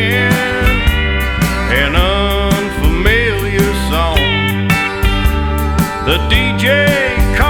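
Country song in an instrumental passage: steel guitar playing sliding, bending notes over a steady bass line and drum beat.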